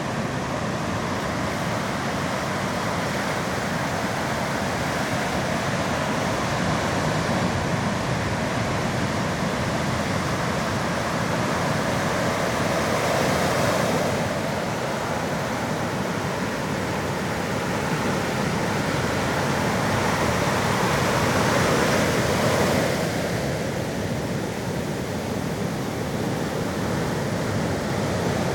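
Sea waves washing onto the shore: a steady rush of surf that swells louder twice, about halfway through and again near the end.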